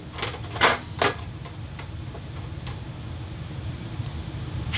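A few light metal clicks and knocks in the first seconds as the fan's sheet-metal mounting bracket is handled and fitted, over a steady low hum.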